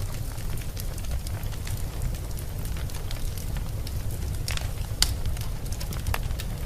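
Wood fire burning in a fireplace: a steady low rumble of flames with irregular sharp crackles and pops, the loudest pop about five seconds in.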